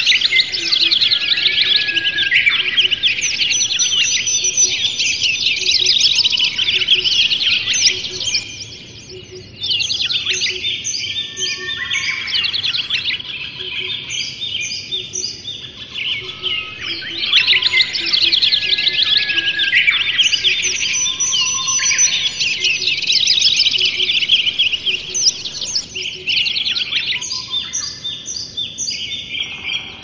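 Birds chirping and twittering in a dense, continuous chorus of quick overlapping calls and trills, with a short lull about nine seconds in.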